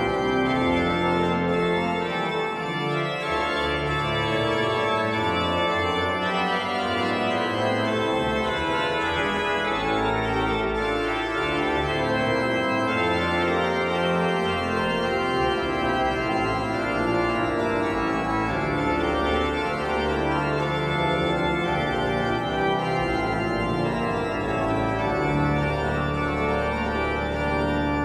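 Church pipe organ playing slow, sustained chords, with the low bass notes changing every second or two.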